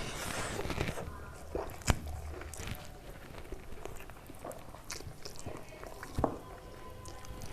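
Close-up eating sounds: a person chewing and biting food, with scattered sharp clicks and small crunches.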